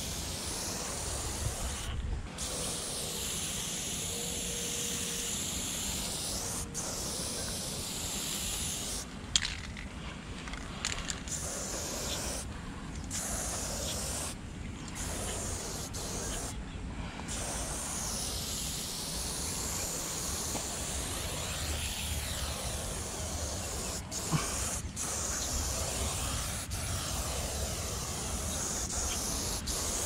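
Aerosol spray paint can hissing as paint is sprayed onto a wall in long strokes, stopping briefly several times between strokes. A single sharp click comes about a third of the way in.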